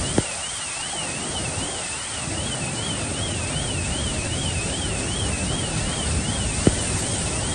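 Floodwater rushing and churning past parked cars, a steady heavy wash of noise. A high tone warbles up and down evenly about twice a second throughout, and two brief knocks stand out, one just after the start and one near the end.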